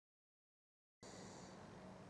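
Dead silence, then about halfway through a faint, steady hiss with a low hum sets in and holds.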